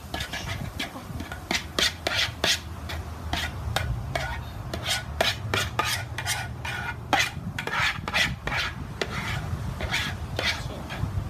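Slime being stirred in a plastic bowl, a glue mixture thickening with borax activator: irregular scraping and clicking of the utensil against the bowl, several strokes a second, with wet, sticky stirring.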